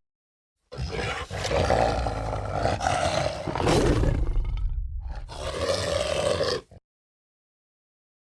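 Film werewolf sound effect: a rough, growling roar lasting about six seconds, with a short break near the end, starting and stopping abruptly between silent gaps.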